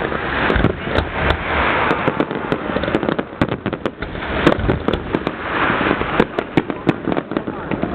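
Aerial fireworks display: a dense barrage of shells bursting, many sharp bangs in quick succession over continuous crackling.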